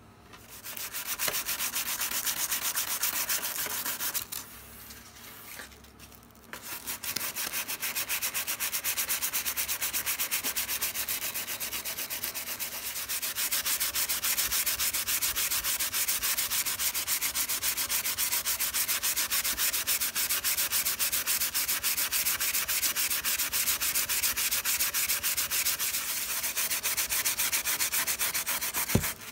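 Sandpaper rubbed by hand in fast back-and-forth strokes over a cello's varnished wooden rib, levelling a raised glue repair. The strokes pause briefly about four seconds in, then carry on steadily.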